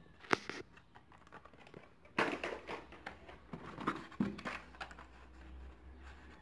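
Carded die-cast toy cars in plastic blister packs being handled: a sharp click, then plastic and cardboard rustling with light knocks as one pack is set down and another is pulled from a cardboard box.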